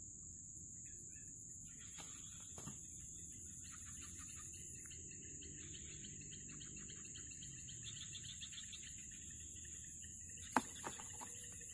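Faint outdoor ambience of birds twittering and insects shrilling steadily, with one sharp click about ten and a half seconds in.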